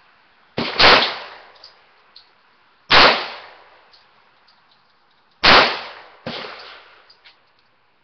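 Pistol shots from a .40-caliber handgun, fired singly a second or two apart: one about half a second in, one about three seconds in, then two close together near the end. Each is a sharp bang with a short ringing tail, clipped and thin through a phone microphone.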